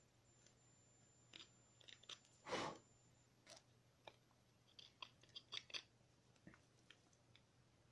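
Small carving knife cutting into a wooden figure being whittled: scattered faint crunchy cuts and scrapes, the loudest a longer slicing cut about two and a half seconds in.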